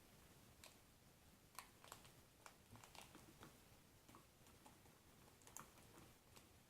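Near silence with faint, scattered small clicks and taps: powder being poured from a packet into a plastic toy volcano.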